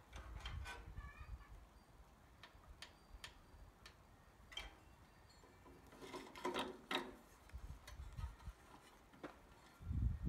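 Faint, scattered clicks and small handling noises as the controls and starter of an MTD tiller's small engine are worked. Near the end a low rumble begins as the engine starts turning over.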